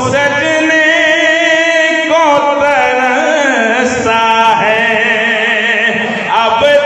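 A man's solo voice chanting devotional verse into a microphone, amplified through a PA. It glides up into the first note, then holds long melodic notes with wavering vibrato, breaking only briefly between them.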